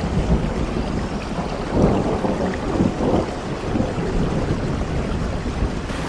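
Steady heavy rain with a low rolling rumble of thunder that swells about two seconds in.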